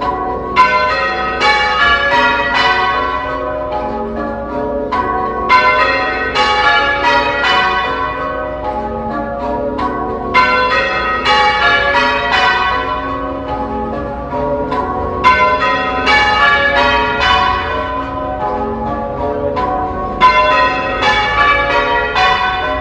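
Church tower bells rung in full circle, one after another in repeating rows, in the English change-ringing manner. Each new row opens with a louder strike, about every five seconds.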